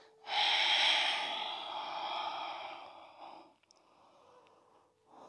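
A person's long audible exhale through the mouth, like a sigh, while folding forward in a yoga forward fold. It lasts about three seconds, loudest at the start and fading away.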